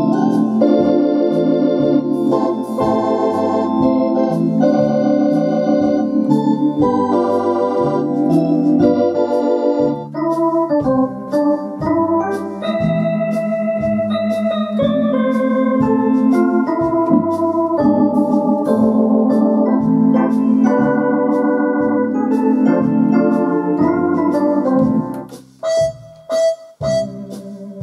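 Orla Compact Theatre electronic organ playing a foxtrot: held chords over bass notes about two a second. Near the end the sound drops away briefly and thins to a lighter passage.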